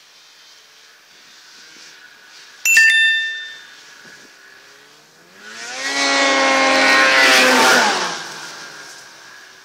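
1999 Ski-Doo Summit 600 snowmobile's two-stroke engine coming in from a distance and passing close by. It is loudest past the middle, its pitch rises as it nears and drops as it goes past. About a quarter of the way in there is a sudden sharp click with a short ringing tone.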